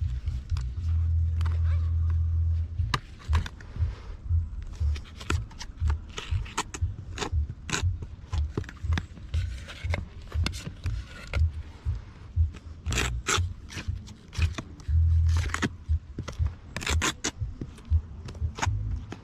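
Repeated scraping and rubbing of hand tools on the roof, with many short sharp clicks. A low rumble comes in twice: over the first few seconds and again about fifteen seconds in.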